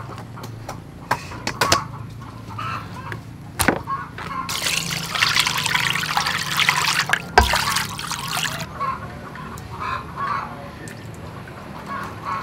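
Water pouring and splashing from a container over a raw pig head and intestines in a steel bowl, for about four seconds in the middle, with a few short knocks before it.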